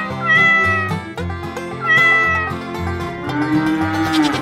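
A cat meowing twice, two short calls about a second and a half apart, over background music; near the end a longer, lower, steady animal call.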